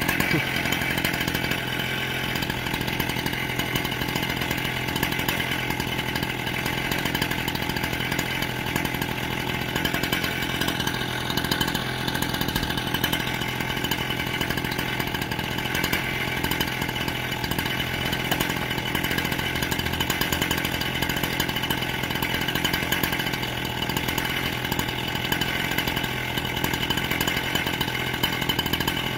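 An engine running steadily at a constant speed, its pitch and level hardly changing.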